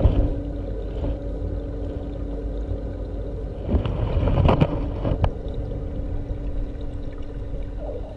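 Muffled underwater noise in an aquarium tank: a steady low rumble with a constant hum, and a few sharp knocks, most of them between about four and five seconds in.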